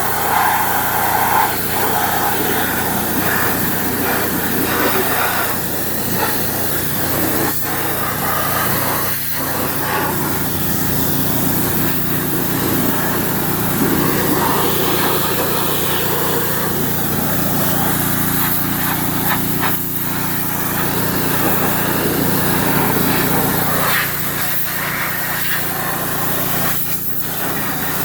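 Pressure washer running steadily, its engine hum under the hiss of the high-pressure water jet spraying a side-by-side UTV.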